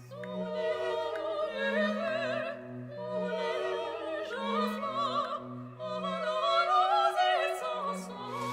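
Operatic singing with strong vibrato over an orchestral accompaniment.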